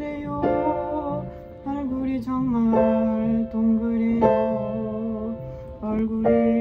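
A woman singing a slow, freestyle Korean song with long held notes, the lyrics about having a round face, over instrumental accompaniment.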